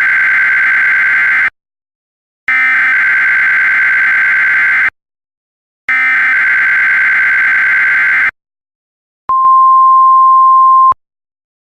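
Emergency Alert System SAME header: three buzzing digital data bursts about two and a half seconds each, with a one-second gap between them; the first is already under way. About a second and a half of a single steady attention tone near 1,000 Hz follows.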